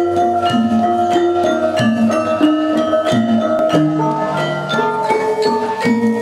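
Javanese gamelan ensemble playing, with the bronze kettle gongs of the bonang struck with padded mallets in a steady stream of ringing notes over sustained lower tones.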